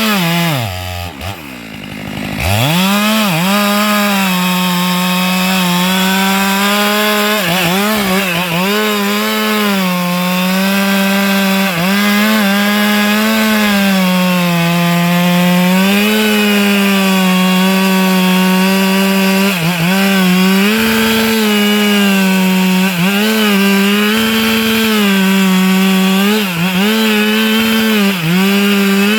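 Two-stroke chainsaw, a Stihl MS 462, cutting sengon branches at high revs, its pitch sagging again and again as the chain bites into the wood. About a second in the throttle drops off almost to idle, then the saw revs straight back up.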